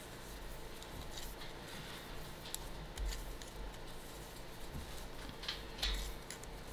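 Faint clicking of knitting needles and cotton yarn rubbing as stitches are worked by hand, with a few slightly louder ticks around three and six seconds in.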